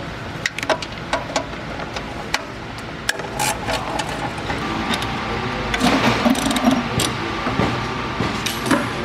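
Hand tools clicking and clinking on metal fasteners and the heat shield in a car's engine bay, in scattered short taps that grow busier about two-thirds of the way through, over a steady background hum.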